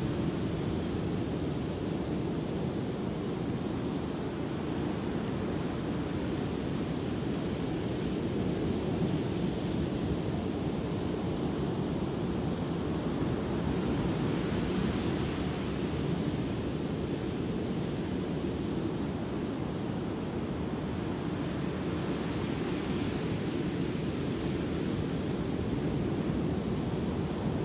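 Ocean surf breaking on a sandy beach: a steady rush of waves, swelling a little every several seconds as a wave breaks.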